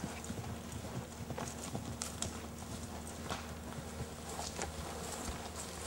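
Hoofbeats of a cantering pinto horse on grass: a run of irregular thuds and knocks.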